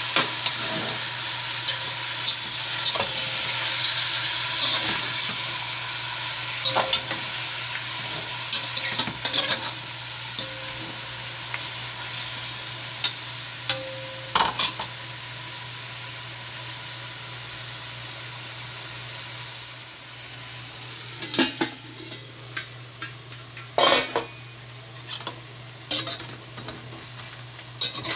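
Chicken frying in a stainless steel pot, a steady sizzle that slowly fades, with a utensil knocking and scraping against the pot as it is stirred, more often in the second half. A steady low hum runs underneath.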